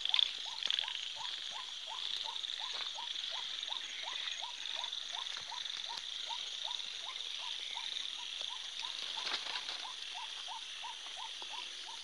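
Night chorus: a frog calling in a steady series of short notes, about three a second, over a continuous high drone of insects.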